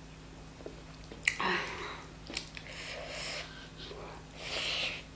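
Close-miked eating noises from someone eating chicken curry and rice: a sharp click about a second in, then several short breathy bursts of mouth and breath noise.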